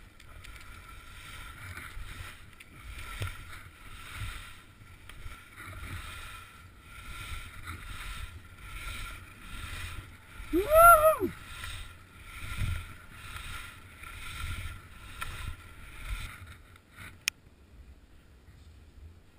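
Skis turning down a snow slope, a swish about once a second, with wind rumbling on the microphone. About halfway through a person lets out a high whoop that rises and falls. The swishing stops with a click near the end.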